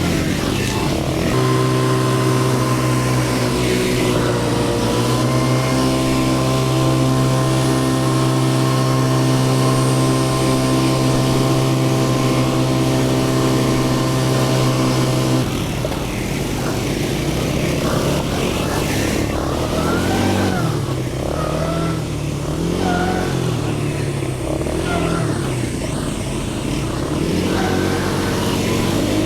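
ATV engine running at a steady speed for about fifteen seconds, then its speed rising and falling as the throttle is worked along the trail.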